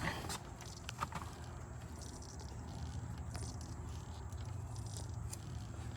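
Rubber fuel primer bulb on a Bobcat 763's fuel line being squeezed by hand over and over to prime the fuel system after a filter change, with soft squishes and a few clicks over a steady low hum.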